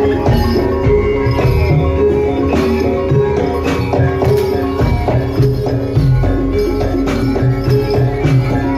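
Javanese jaran kepang music played live: a gamelan-style ensemble with regular drum strokes under held, ringing pitched tones.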